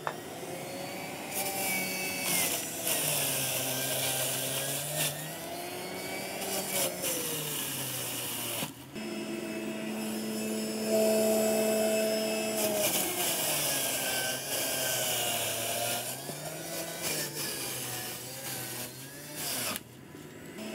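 Electric juicer running as cucumbers are pushed through it. The motor's pitch sags and recovers under each push, and it grinds on the pulp. About halfway through it cuts out for a moment, then runs free with a steady higher hum before loading down again.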